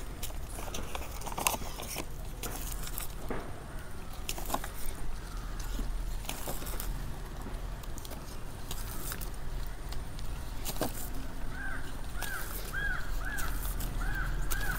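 Plastic budding tape crinkling and rustling with soft, scattered clicks as it is wound tight around a rambutan bud graft. Near the end a bird calls in a quick series of short repeated notes.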